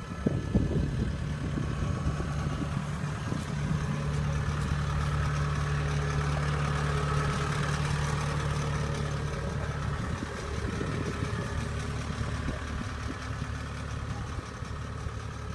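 The diesel engine of a tracked combine harvester running steadily close by, a low even hum that is strongest mid-way and eases slightly after about ten seconds. There is a little clatter in the first second.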